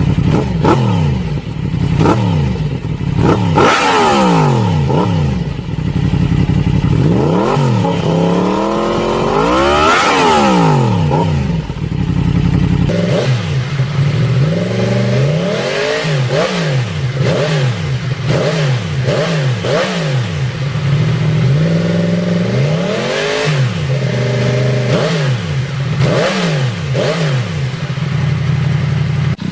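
Motorcycle engine revved in place through aftermarket slip-on exhausts, first an Austin Racing muffler, then an Arrow carbon muffler. Pitch repeatedly rises and falls, with two long revs climbing high before a cut about 13 seconds in, then a rapid series of short throttle blips.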